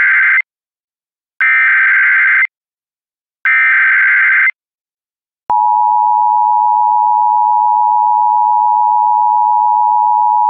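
Emergency Alert System SAME header: three one-second bursts of electronic data tones a second apart, the first already under way, marking the start of an emergency alert. About five and a half seconds in, the steady two-tone EAS attention signal starts and holds.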